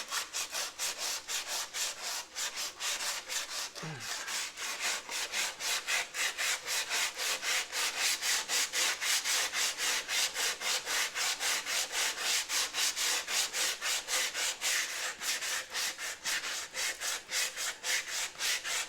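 Sandpaper worked by hand in quick back-and-forth strokes, about four a second, over a filler-repaired car fender, smoothing the bodywork before primer.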